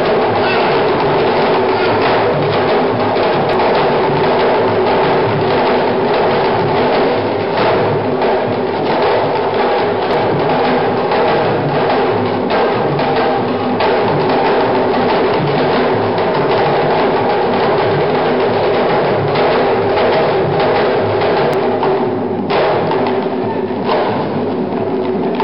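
Senegalese sabar drum ensemble, with an hourglass tama talking drum, playing a fast, dense dance rhythm of sharp stick-and-hand strokes without a break.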